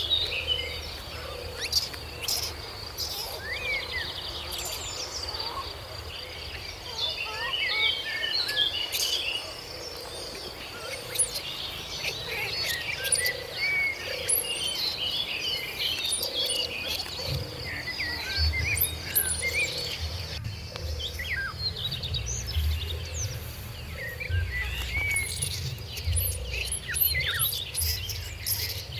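Outdoor chorus of many short bird chirps and whistles, overlapping throughout, over a steady high insect drone and a low rumble that grows louder in the second half.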